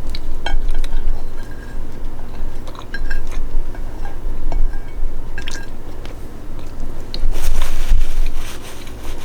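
Close-up eating and food-handling sounds: chewing a piece of chicken, with small wet clicks and squishes and a longer rustle about seven seconds in.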